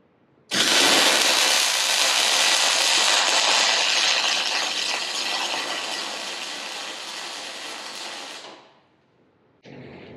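Arc welding an inner C onto a 14-bolt axle tube: the welding arc starts suddenly and crackles steadily for about eight seconds, one stitch bead, then stops. A fainter noise starts just before the end.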